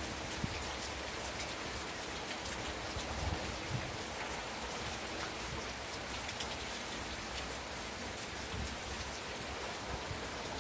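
Steady hiss of gentle rain mixed with scattered sharp crackles and pops from a wood fire in a fireplace, a couple of them louder about three to four seconds in.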